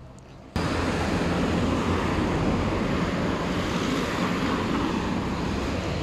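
Steady roar of traffic on a wide city street, cutting in suddenly about half a second in.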